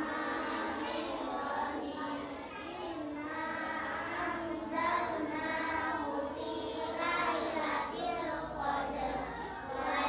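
A group of young children reciting the Arabic prayer words aloud together in a sing-song chant.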